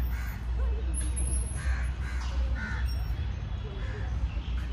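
Crows cawing in a scattered series of short caws.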